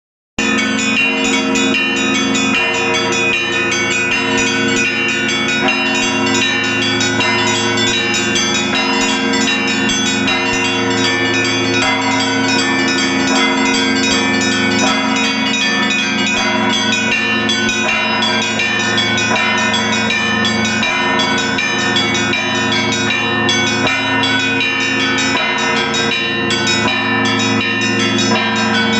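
Russian Orthodox church bells in a cathedral bell tower rung together in a peal: rapid, dense strikes of the smaller bells over the steady hum of the larger ones.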